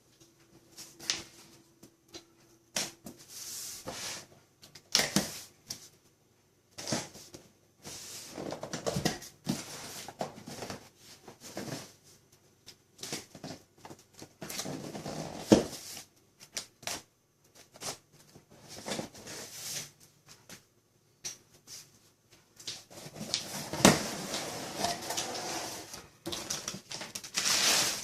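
Cardboard box and packaging being handled and opened: irregular clicks, knocks and rustling, busier near the end.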